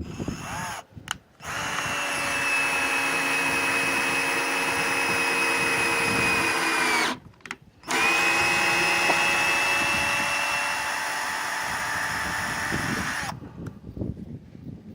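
Total TDLI20021 20 V cordless drill-driver running in bursts: a short spin-up, then two long steady runs of about five to six seconds each, its pitch dropping as the motor stops between them.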